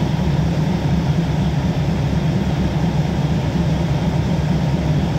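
Diesel passenger train idling while standing at the platform: a steady low engine hum with no change in pitch or loudness.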